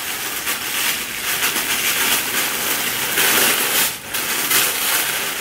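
Tissue-paper wrapping being pulled open and handled, rustling and crinkling with a brief lull about four seconds in.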